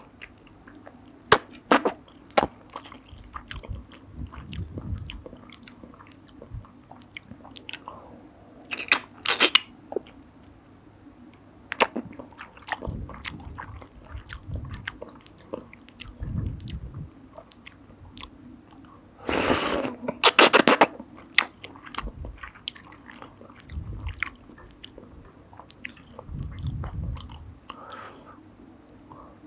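Close-miked eating of soupy noodles: wet chewing and biting clicks throughout, with a few louder noisy bursts, the longest about two-thirds of the way through.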